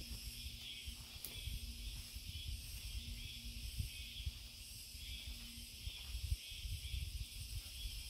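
Insects chirring in a steady chorus that pulses about once a second, over scraping, knocking and rustling as a small hand hoe clears leaf litter and soil.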